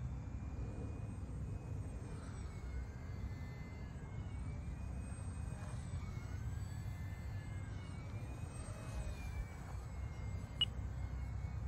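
UMX Air Tractor micro RC plane's electric motor and three-bladed propeller whining faintly, the pitch sliding up and down as the plane flies past and turns, over a steady low rumble. A single sharp click near the end.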